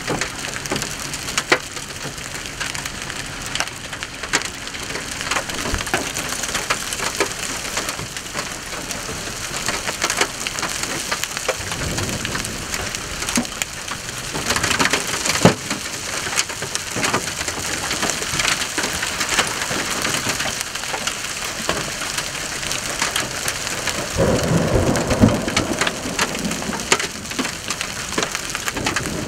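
Hail and rain pelting down, a dense spatter of sharp clicks and knocks from individual hailstones striking. Low rolls of thunder rumble underneath, once a little before the middle and again more strongly near the end.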